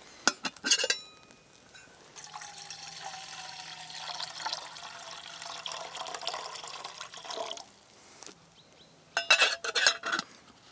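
Water poured into an Überleben stainless-steel camping kettle for about five seconds. The kettle's metal lid clinks a few times about a second before the pour and clanks back on near the end, and those clanks are the loudest sounds.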